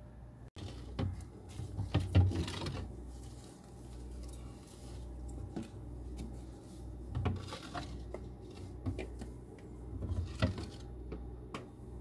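Scattered soft knocks, taps and rubbing as small things are handled on a countertop and on a glass refrigerator shelf, over a low steady hum.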